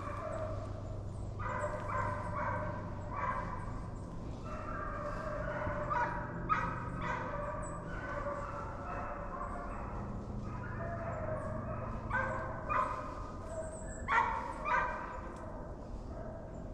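Several deer hounds baying as they run a deer's track, their calls repeating and overlapping at different pitches, with a few louder calls near the end.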